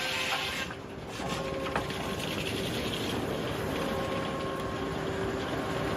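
Powered saw machinery cutting through wood, a steady rasping noise with a brief dip about a second in.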